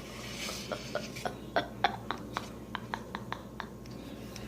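A squishy foam toy being cut open: about a dozen short, sharp snips and clicks over three seconds, irregularly spaced.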